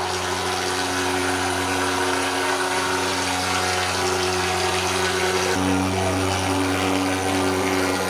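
Engine-driven insecticide fogging machine running with a loud, steady drone. Its pitch shifts slightly about five and a half seconds in.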